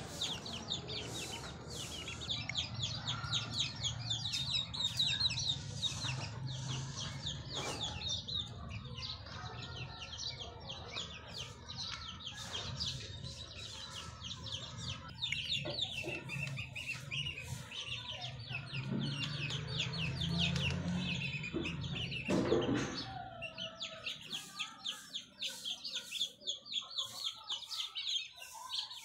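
Young chicks peeping without a break: many short, high calls in quick succession. A low rumble lies under them until about three-quarters of the way through, after which the peeps stand alone.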